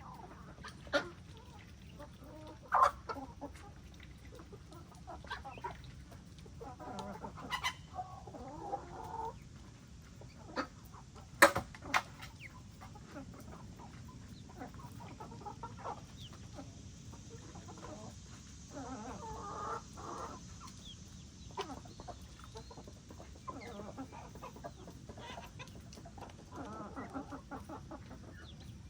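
Chickens clucking and calling on and off in short bouts, with a few sudden sharp loud sounds standing out, the loudest about eleven seconds in.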